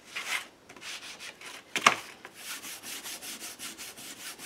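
A felt ink pad rubbed across a textured, sanded card: a few scrubbing strokes, then a fast run of short repeated strokes. A single sharp knock about two seconds in stands out as the loudest sound.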